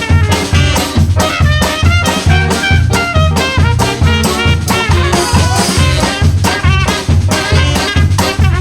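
Street brass band playing an instrumental passage of a song: horns carry the tune over a steady low bass beat and drums.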